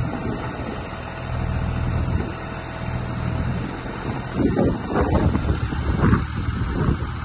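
JCB 8025 ZTS mini excavator's diesel engine running steadily. From about four seconds in there are louder, uneven surges over the engine hum.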